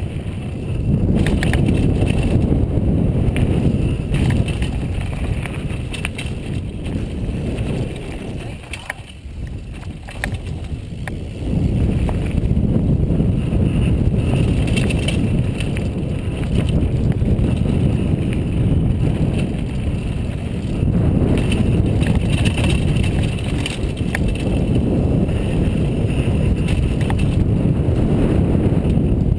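Wind buffeting a helmet-mounted camera's microphone, mixed with tyre rumble and rattling from a mountain bike descending a rough dirt trail. It eases off for a few seconds about a third of the way in, then picks up again.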